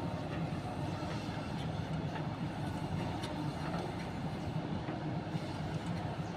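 Heavy diesel engine of earthmoving machinery running steadily at a constant speed, with a low even drone and a few faint clicks.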